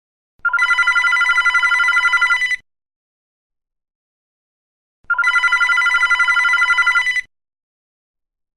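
Electronic telephone ringing: two trilling rings of about two seconds each, with a gap of about two and a half seconds between them.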